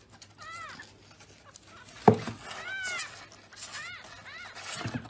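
Kitten mewing three times: short, high cries that rise and then fall in pitch. A single sharp knock comes about two seconds in.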